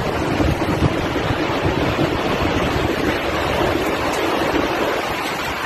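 Tornado winds rushing hard and steadily, with irregular gusts buffeting the phone's microphone.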